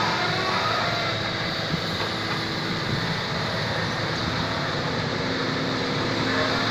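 Excavator's diesel engine running steadily, its note shifting slightly lower about five seconds in.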